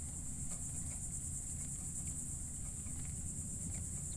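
Steady, high-pitched insect drone with a low rumble underneath and a few faint clicks.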